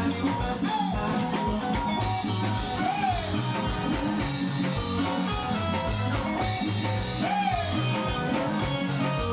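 Live band playing a steady upbeat dance groove with electric guitar, bass and drums.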